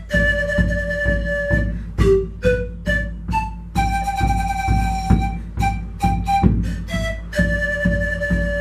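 Siku (Andean bamboo panpipes) playing a melody of long held notes broken by shorter ones, over a steady rhythmic accompaniment with a low beat.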